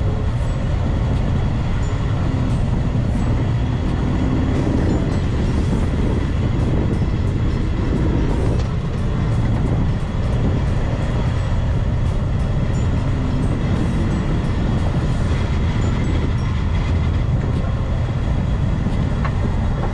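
A heavy vehicle running: a loud, steady low rumble with rattling.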